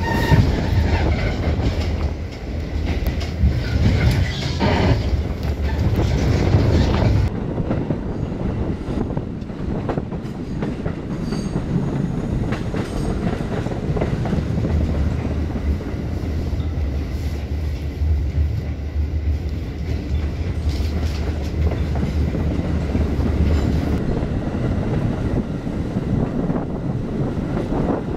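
New York City subway train running on the rails: a steady rumble with the clickety-clack of wheels over rail joints.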